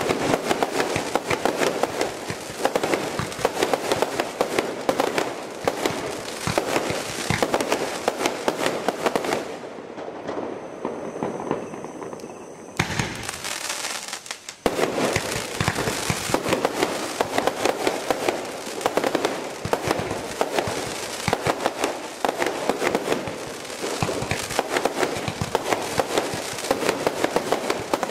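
Brocade Crown display fireworks cake firing shot after shot in rapid succession: launches and bursting shells follow each other closely. The firing thins out into a brief lull about halfway through, then picks up densely again.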